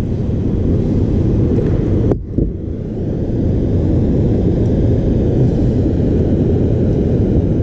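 Wind buffeting the microphone: a loud, steady low rumble, with a brief lull about two seconds in.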